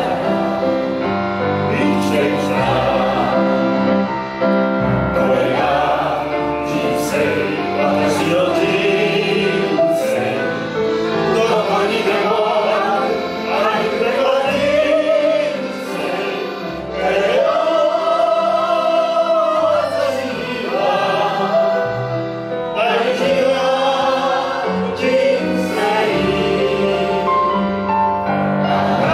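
A small mixed group of men and women singing a Japanese song together into microphones, accompanied by a double bass.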